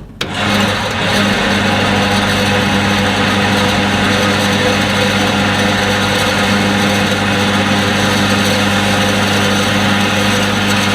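Electric target carrier motor on a shooting-range target track, switching on and running with a steady hum as it brings the paper target back to the firing line.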